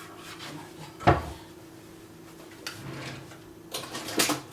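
Kitchen handling sounds: one sharp knock about a second in, then lighter clicks and clatters near the end, like dishes, containers or a cupboard being handled. A faint steady hum runs underneath.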